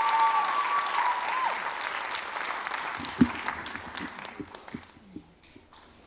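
Audience applause dying away over about five seconds, with a few soft low knocks near the end.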